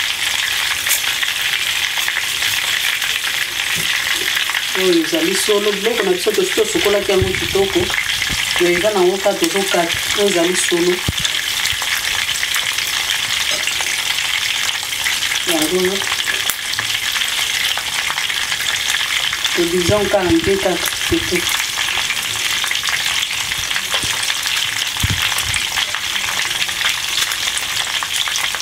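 Food frying in hot oil in a pan: a steady, continuous sizzle.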